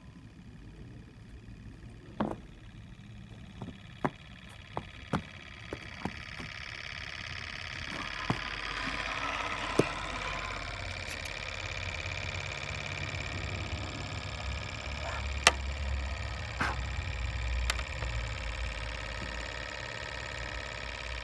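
Wiggers Stiwi 2 Stirling engine running: a steady whirring with several high tones that grows louder about six seconds in, with irregular sharp clicks scattered through and a low rumble in the second half.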